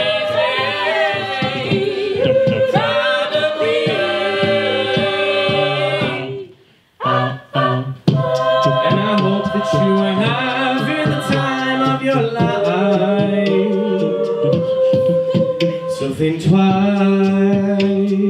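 Mixed-voice a cappella group singing in harmony over vocal percussion. About six and a half seconds in, the voices cut off almost to silence, a few short staccato hits follow, and the full group comes back in.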